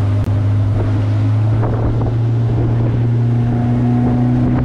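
Outboard motor on a small aluminium fishing boat running steadily with an even, pitched engine hum.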